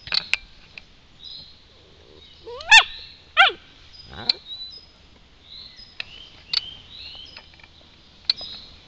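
Dalmatian giving two short, rising yelps about three seconds in, followed by a brief low rising grumble.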